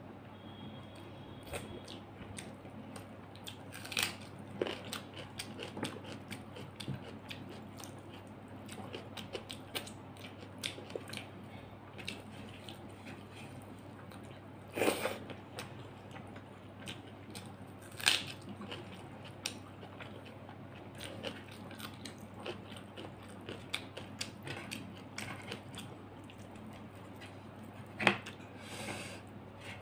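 Close-up eating sounds: chewing and wet mouth clicks from eating rice and fish curry by hand, with a few louder bites. A steady low hum runs underneath.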